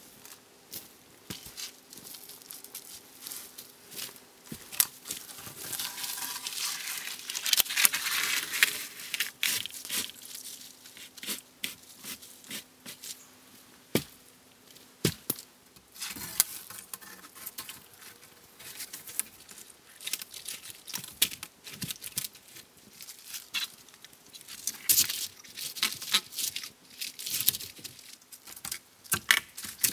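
Dry dead branches and twigs rustling, cracking and snapping as they are gathered and dragged through the forest undergrowth, with irregular sharp snaps throughout and two longer spells of dense rustling, the second near the end.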